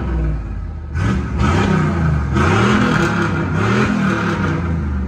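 Chevy OBS C1500 pickup's gasoline engine revved through a newly installed exhaust, blipped four or five times with the pitch rising and falling on each rev.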